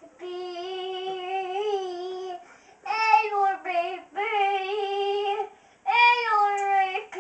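A young boy singing in mock-operatic style: long held notes with a wavering vibrato, in four phrases with short breaths between them.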